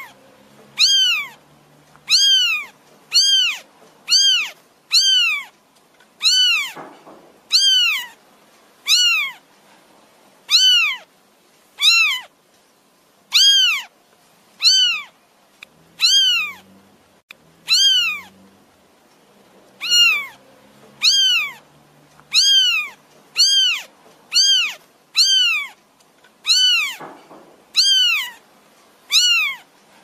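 A kitten mewing over and over, about one meow a second. Each call is high-pitched and rises then falls.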